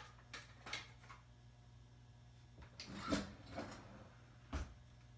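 Kitchen drawer and cabinet being handled: a few light clicks and clatters, a busier cluster of knocks about three seconds in, then a dull thump about four and a half seconds in.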